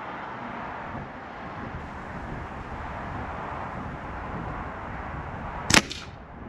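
Steady outdoor background noise, then near the end a single sharp shot from an Air Arms TX200 underlever spring-piston air rifle, with a brief ring after it.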